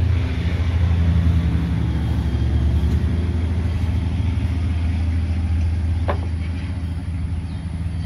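TimberKing 2000 sawmill's engine running steadily at idle, a constant low hum, with a single sharp knock about six seconds in.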